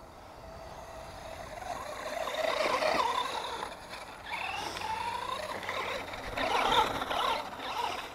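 Brushed electric motor and geartrain of a Tamco Ranger 1/10 4WD RC truck whining as it drives. The pitch rises and falls with the throttle, loudest about three seconds in and again near seven seconds.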